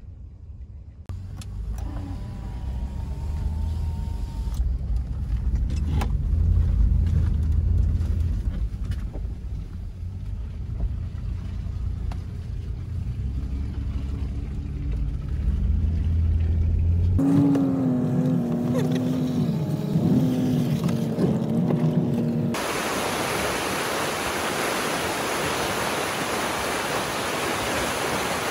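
An off-road SUV drives a rough track, its engine and tyre rumble heard from inside the cabin, with a steadier, stronger engine note for a few seconds past the middle. About 22 seconds in, the sound cuts abruptly to the steady rush of a fast, rocky river.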